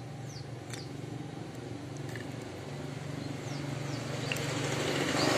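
A vehicle engine running in the background, steady at first and growing louder toward the end, with a few short, high, falling chirps over it.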